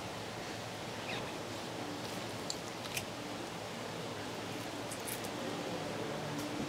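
Long sashimi knife trimming the belly flap from a sea bass fillet on a cutting board: faint slicing and scraping, with a few soft clicks, over a steady hiss.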